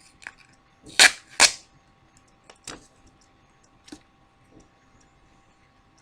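Protective tape or plastic seal being peeled off a new setting powder container: two short, loud rasps about a second in, then a few light clicks of the container being handled.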